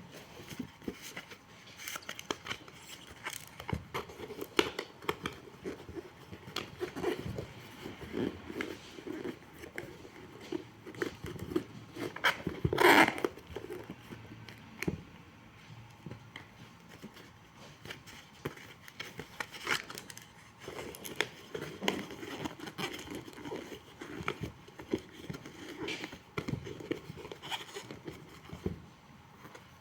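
Irregular handling sounds of hand work on a shoe at a workbench: small clicks, taps and rustling scrapes, with one louder scrape lasting about a second near the middle.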